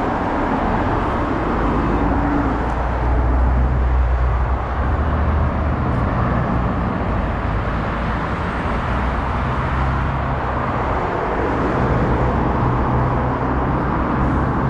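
Steady road traffic noise from a busy multi-lane highway: many cars passing underneath, a continuous rush of tyres and engines with a deep rumble.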